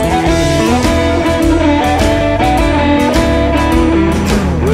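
Blues band music, an instrumental stretch with no singing: a guitar plays bending lead notes over a steady low bass line and drum hits.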